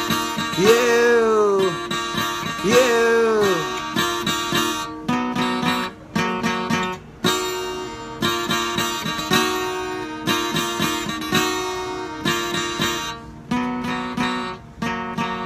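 Acoustic guitar strummed and picked, with a man singing the final word "you" in the first few seconds, drawn out and falling in pitch twice. The guitar then plays on alone, chord after chord.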